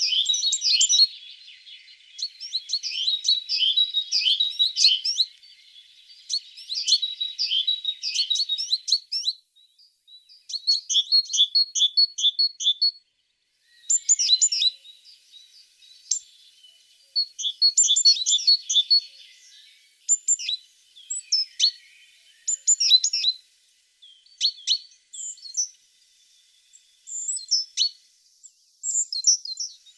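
A tit singing in phrases of rapid, high chirping notes a few seconds long, with short pauses between them.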